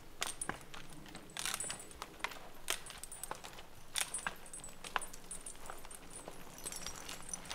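A draft horse in logging harness walking through forest undergrowth: irregular sharp clinks of the harness chain and metal fittings, with its footfalls.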